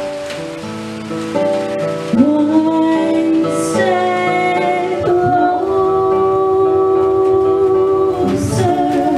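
A woman singing a slow song into a handheld microphone with acoustic guitar accompaniment. She holds long notes, several of them sliding up into pitch.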